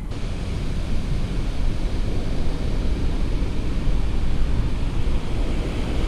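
Wind rushing over the microphone of a camera on a moving bicycle, mixed with tyre and road noise: a loud, steady rush with a heavy low rumble.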